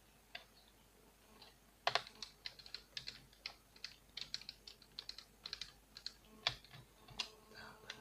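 Small, irregular clicks and taps of a screwdriver working the screws around the heatsink and fan inside an open laptop's plastic case. There is one faint click near the start, then from about two seconds in a quick, uneven run of several clicks a second.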